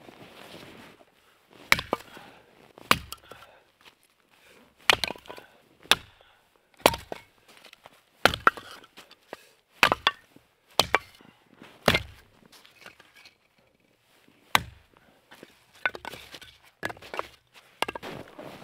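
Firewood being chopped: about a dozen sharp wooden strikes, roughly one a second, with a short pause partway through.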